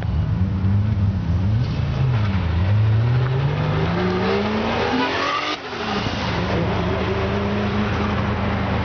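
Toyota Supra MA70's 7M straight-six at full acceleration: the revs waver and then climb steadily for a few seconds before breaking off about five and a half seconds in. Afterwards an engine keeps running at a steady pitch.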